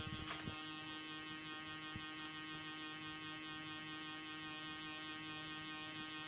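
Brushless camera gimbal motors, powered up, giving a steady electrical hum with a high whine made of many fixed tones. A few short handling knocks come right at the start.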